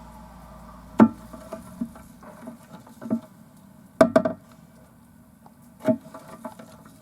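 ADD-type air-operated diaphragm pump running with a steady hum while sucking up a slurry of hard 3–5 mm crystals, with irregular sharp clicks and knocks as the solids rattle through, the loudest about a second in and about four seconds in.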